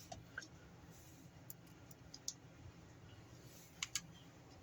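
Faint, scattered small clicks of a screwdriver and screws against a plastic toy housing as screws are driven back in, a few seconds apart with a pair close together near the end.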